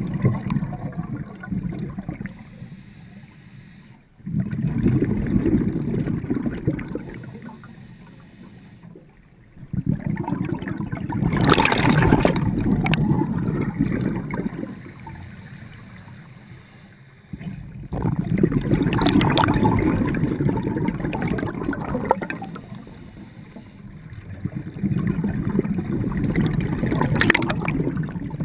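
Scuba diver breathing through a regulator underwater: rumbling, bubbling bursts of exhaled air about every seven seconds, each starting abruptly and fading over a few seconds.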